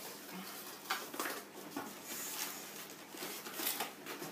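Cardboard box flaps being pulled open by hand: a few short scrapes and rustles of cardboard, about a second in and again near the end.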